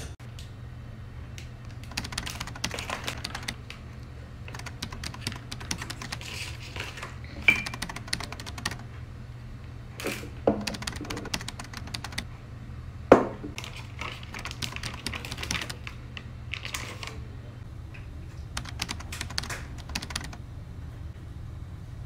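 Kitchen prep sounds: bursts of light clicking and clatter from cookware, utensils and food packaging being handled. There are three sharper knocks or clinks, and a steady low hum underneath.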